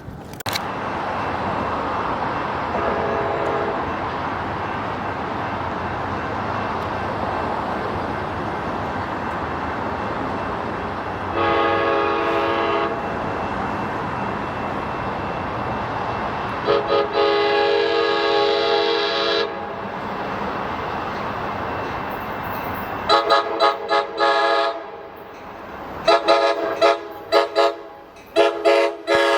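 Amtrak Pacific Surfliner train's multi-chime air horn sounding a horn show: a brief chord, then two longer blasts, then a rapid string of short staccato toots in three clusters near the end. Under the first two-thirds there is a steady rush of the moving train.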